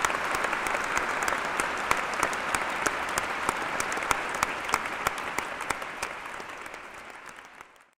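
Crowd applauding with dense clapping that slowly fades out near the end.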